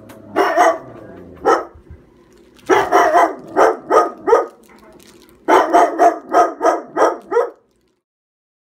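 Siberian husky barking: a couple of single barks, then two quick runs of short barks, stopping abruptly about a second before the end.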